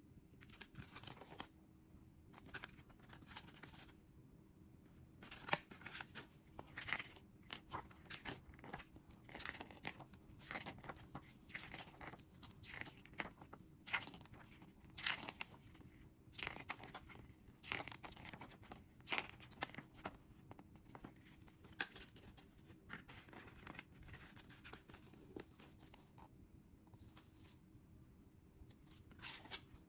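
Paper CD booklet and cardboard sleeve being handled and their pages turned: a quiet, irregular string of paper rustles, scrapes and light taps.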